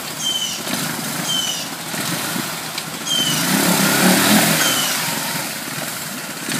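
Three-wheeled ATC's single-cylinder engine running and being revved as it churns through deep mud and creek water, louder and revving harder from about three seconds in. A bird gives four short descending whistled calls.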